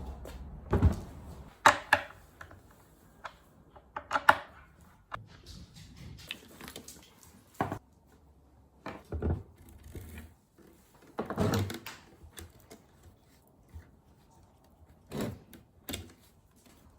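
Irregular knocks, clicks and short bursts of clatter from electric skateboards and their parts being handled and set down, about eight separate bumps spread over the stretch.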